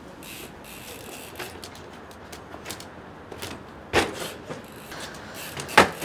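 Enduro mountain bike hopping along brick ledges: light tyre scuffs and clicks, then two sharp landing impacts on brick about four and six seconds in, the second the louder.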